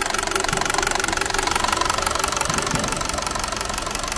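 Lada Vesta's engine idling steadily under the open hood, with a fast, even ticking over the running.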